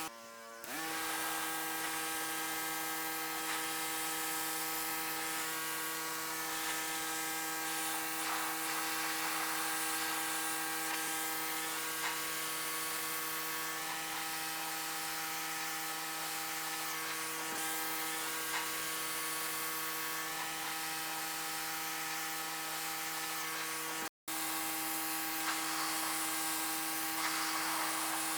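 Electric pressure washer running steadily, its motor humming under the hiss of the water jet as it sprays algae out of pool filter cartridges. The sound drops out briefly twice.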